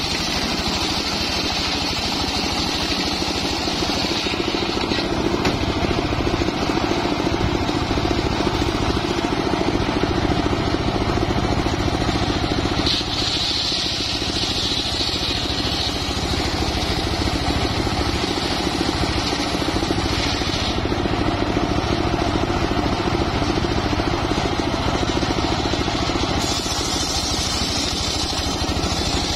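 Homemade engine-driven circular sawmill running steadily while a teak log is fed through its blade. A constant engine drone is overlaid by a higher-pitched whine that comes and goes several times, near the start, partway through and near the end.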